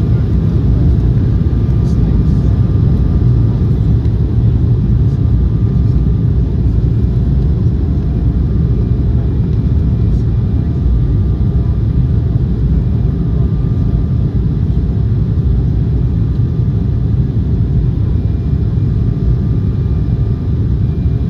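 Steady low rumble of cabin noise inside an Embraer 190 airliner on approach, from airflow and its two turbofan engines, with faint steady engine tones over it.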